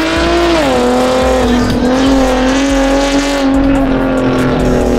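A car engine held at high revs and loud, its pitch dropping about half a second in and then holding nearly steady.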